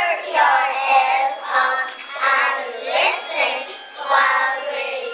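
Young second-grade children singing together in phrases about a second long.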